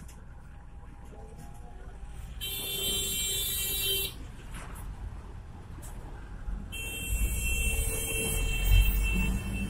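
Road noise inside a moving vehicle with two long horn blasts, the first about two seconds in and the second, longer one near the end. A heavy rumble swells as a truck passes close by near the end.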